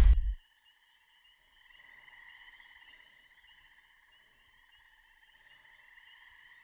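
A loud low rumble cuts off abruptly in the first half second. It leaves a faint, steady chorus of trilling night creatures, a fine rapid pulsing held on a few high pitches.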